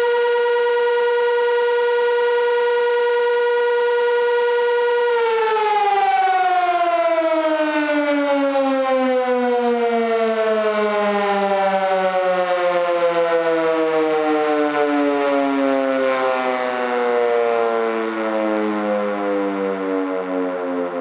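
Sentry 16v1T-B electromechanical outdoor warning siren holding a steady tone, then, about five seconds in, cut off and winding down, its pitch falling steadily for the rest: the end of a short steady alert test.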